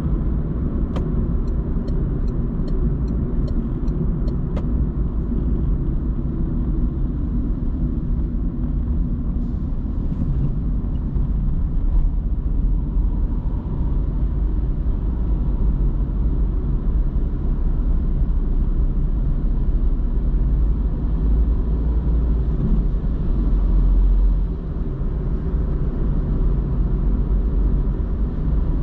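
Car driving at road speed, heard from inside the cabin: a steady low rumble of tyres and engine. In the first few seconds there is a run of about eight light ticks, roughly two a second.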